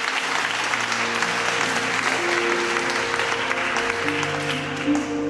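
Audience applauding over held piano notes and chords; the clapping dies away near the end while the piano carries on.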